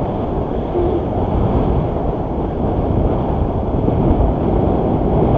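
Wind buffeting a camera's microphone during a tandem paraglider flight: a loud, steady, low noise.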